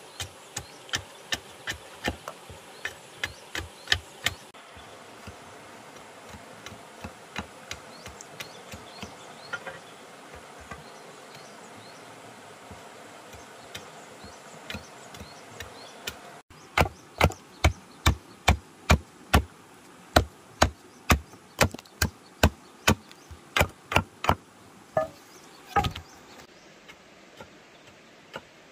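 Steady hammering on wood, about two blows a second. The blows are fainter through the middle, much louder from a little past halfway, and fade near the end.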